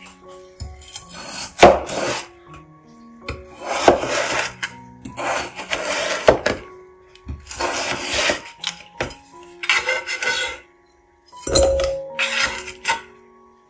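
Raw potatoes being cut into chunks with a kitchen knife on a plastic cutting board: a series of crisp slicing strokes, about one a second or so, several ending in a sharp knock of the blade on the board.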